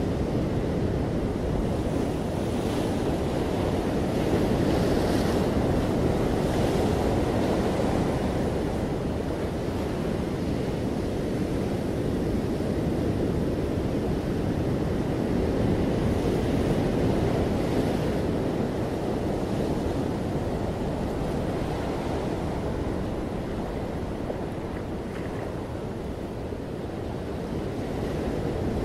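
Ocean surf breaking and washing up a sandy beach among rocks, a continuous wash of waves. It swells a little about five seconds in and again past the middle, then eases off near the end.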